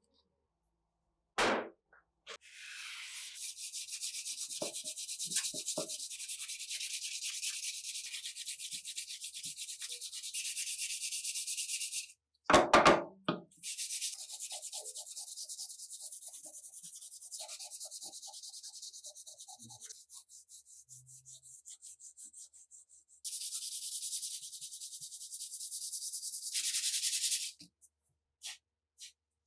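Sandpaper rubbed back and forth by hand along a wooden rifle stock: a steady hissing scrape in three long spells of strokes. A few knocks of wood on the bench break it, the loudest between the first and second spells.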